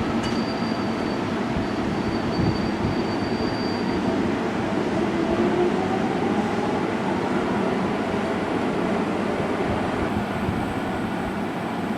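Seibu Railway electric commuter train running on the track, a steady rumble of wheels and running gear. A faint rising motor whine comes through in the middle.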